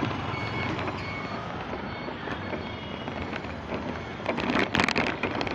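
City street traffic noise: a steady wash of passing vehicles, with a brief louder burst of noise about four and a half seconds in.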